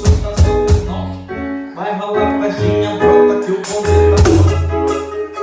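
Music: a song with a deep bass line, keyboard or guitar notes and drums, the drum kit played along to the track, with a quick run of drum hits in the first second.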